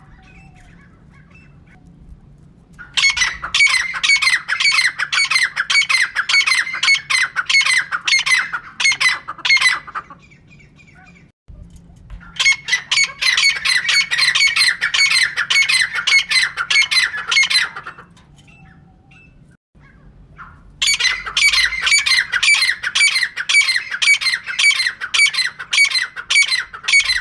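Female teetar (francolin) calling in three long bouts of rapid, evenly repeated sharp notes, with short pauses between the bouts: the call used to lure teetar.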